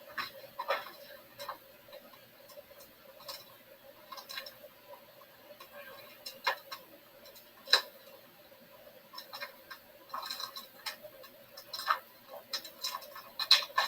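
Scattered light clicks and taps from hands handling packaging and utensils while cooking, over a faint steady hum. The clicks come irregularly and grow busier about ten seconds in and again near the end.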